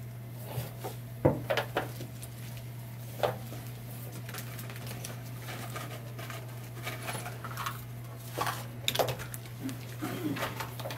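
Scattered sharp clicks and taps of craft tools being handled on a table, with scissors cutting through a band of elastic, over a steady low hum. The loudest clicks come about a second in and again around eight to nine seconds in.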